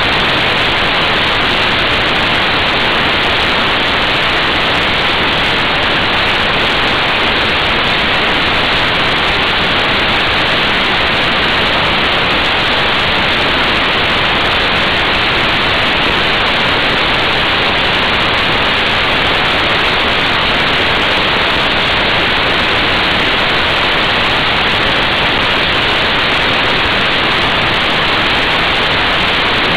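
Steady, loud rush of wind on the microphone of a motorcycle-mounted action camera at motorway speed, with no engine note standing out from it.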